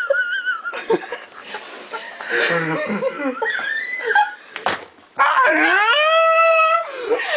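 Wheezing laughter: a thin, high squeak at the start, then breathless, hissing laughs. Near the end comes one long squealing wheeze that rises in pitch and then holds for about a second and a half.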